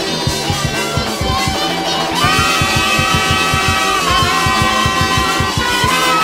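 Nightcore edit of a midwest emo / math rock song, sped up and pitched up: fast, busy drums under bright guitars, with a held high note coming in about two seconds in.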